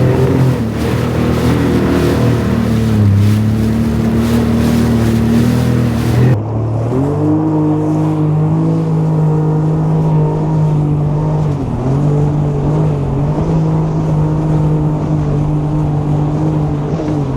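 Jet ski engine running under way, a steady pitched drone with a few brief dips in pitch. Over it is a rushing hiss of wind and water that cuts off abruptly about six seconds in, leaving the engine alone.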